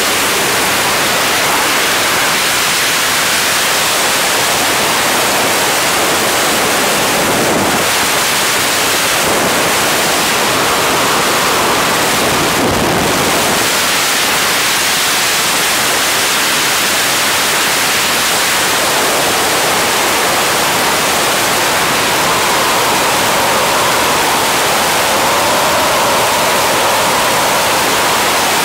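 Freefall wind rushing over a helmet-mounted camera's microphone: a loud, steady rush of noise with no let-up.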